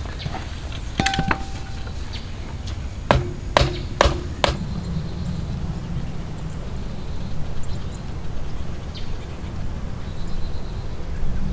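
Steel parts of a swivel campfire grill stand clanking as its arms are fitted onto the upright steel pole: one clink with a short ring about a second in, then four sharp metallic knocks about half a second apart, each ringing briefly.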